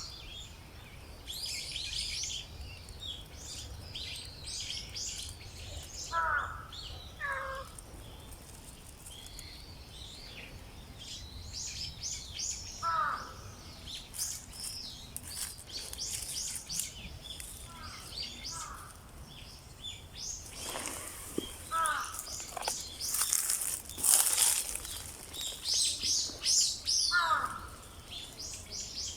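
Small birds chirping and twittering outdoors, with short falling calls every few seconds and a stretch of hiss about two-thirds of the way through.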